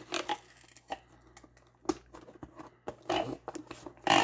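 Packing tape being pulled off a handheld tape-gun dispenser and laid across a cardboard box, in several short noisy strips, the loudest near the end.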